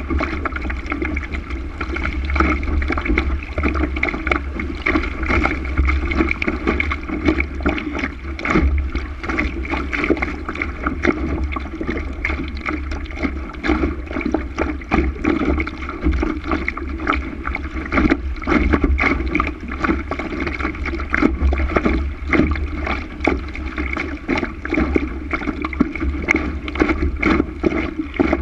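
Water rushing and splashing against the hull of a Laser sailing dinghy under way, with many small splashes, over a steady rumble of wind on the microphone.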